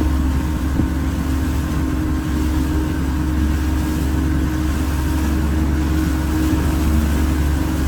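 A motorboat's engine running at a steady drone while the boat is under way.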